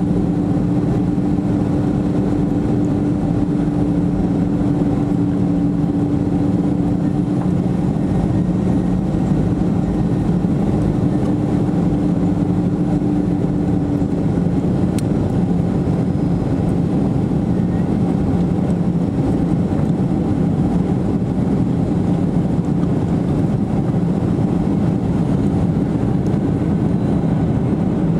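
Jet airliner cabin noise on final approach, heard from a window seat beside the turbine engines: a steady engine drone and rush of air. A steady hum within it drops out about halfway through.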